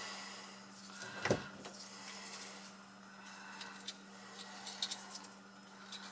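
Hand tool working on copper water pipe: light scraping and small metallic clicks, with one sharp click about a second in and a few more near the end, over a steady low hum.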